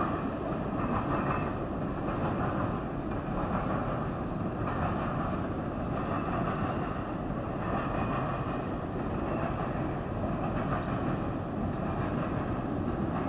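CN freight train of container cars rolling past, a steady rumble of wheels on the rails.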